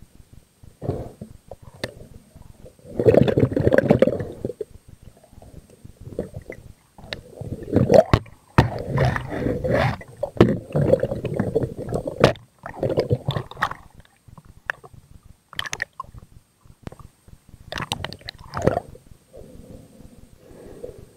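Underwater gurgling and sloshing picked up through a camera housing, in irregular swells, with scattered sharp clicks and knocks as the catch is worked off a spear shaft onto a stringer.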